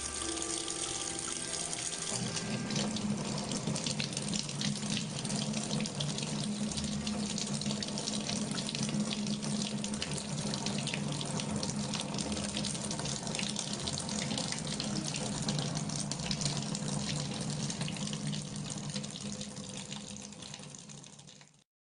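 Kitchen tap running a thin stream into a sink, with a steady low hum under the hiss and small splashes as a cat drinks and bites at the stream. It stops abruptly near the end.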